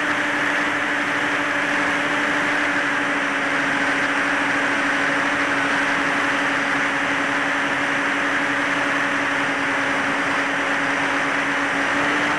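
Electric motors and propellers of a HEEWING T2 Cruza VTOL model plane in forward flight, heard from its onboard camera: a steady hum with its overtone over loud rushing airflow noise, the hum's pitch sagging slightly across the stretch.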